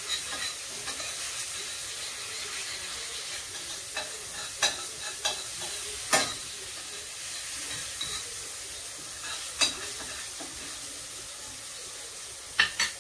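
Eggs frying in a pan with a steady sizzle, and a utensil clicking against the pan now and then, loudest a little after six seconds in and twice near the end.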